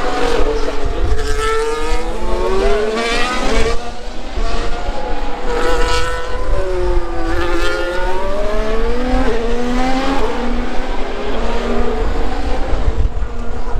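Formula 1 cars with 1.6-litre turbocharged V6 hybrid engines passing one after another. Several engine notes overlap, each dipping in pitch and climbing again.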